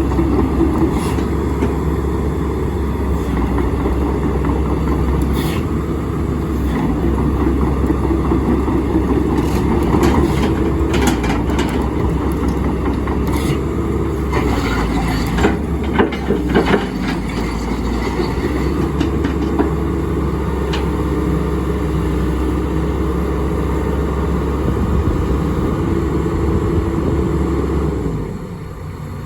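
Diesel engine of a Hyundai R130LC-3 13-tonne excavator running steadily, with a scatter of sharp knocks and clanks near the middle. The sound drops off near the end.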